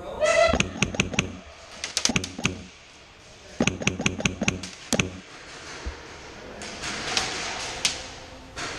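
Airsoft fire: clusters of sharp cracks and knocks, several a second, as shots are fired and BBs strike the wooden and plywood walls. Near the end comes a longer rustling noise.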